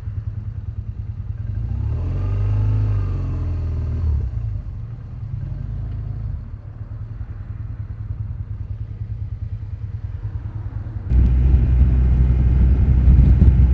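Motorcycle engine running on the move, picked up by a rider's clip-on wireless mic, with a brief rise and fall in engine pitch a couple of seconds in. About eleven seconds in, a heavy low wind rumble on the microphone sets in suddenly and covers the engine.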